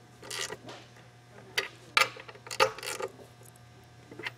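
Ratchet wrench clicking in short, irregular strokes as self-locking nuts are run onto the seat studs, with a few metal taps and scrapes.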